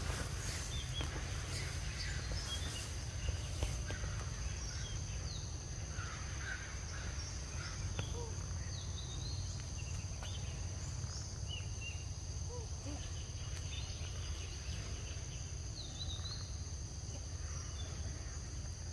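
Forest ambience: insects keep up a steady high drone, with scattered short chirps over it and a low steady rumble underneath.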